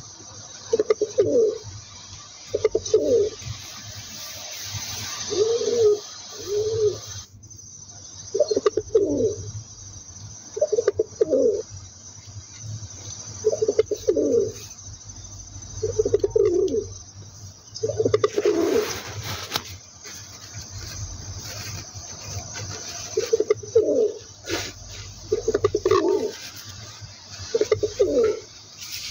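Pigeon cooing: about a dozen short, low coos, roughly one every two seconds, with a pause of a few seconds past the middle.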